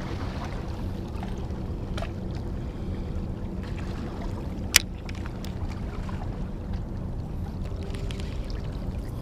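Steady low rumble of wind and water at a rocky shoreline. A few faint ticks are heard, and one sharp click comes about five seconds in.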